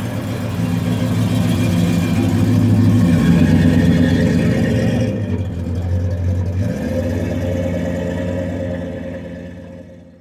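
Mid-1960s Oldsmobile's V8 throbbing as the car pulls away. The note shifts in pitch twice and is loudest a few seconds in, then fades as the car draws off.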